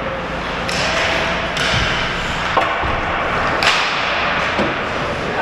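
Ice hockey play on an indoor rink: a steady hiss of skates on the ice, with four sharp knocks of sticks and puck, the loudest a little after three and a half seconds in.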